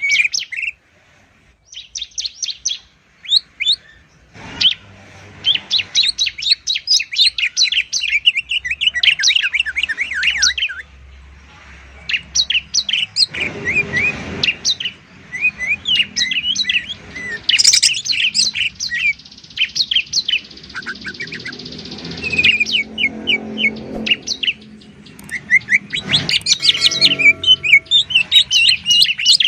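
Cage songbirds, a cucak ijo (green leafbird) and a ciblek (bar-winged prinia), singing loud, fast runs of sharp, high chirps and trills with short breaks: the rapid 'ngebren' shooting song used as masteran for training other songbirds.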